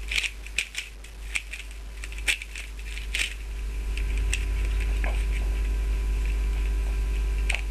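Plastic Dayan GuHong 3x3 speedcube being turned by hand, its layers clicking and clattering in quick irregular snaps. A steady low hum swells from about halfway and cuts off suddenly near the end.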